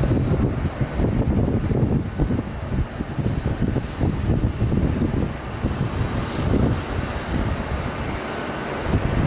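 A BAe 146 four-engine jet freighter's turbofans at takeoff power during the takeoff roll and lift-off, a steady low rumble with a rapid crackle in it.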